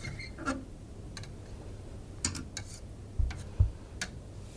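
Scattered light clicks and two soft low thumps as a comb is drawn through inks floating on water and knocks against the plastic tray.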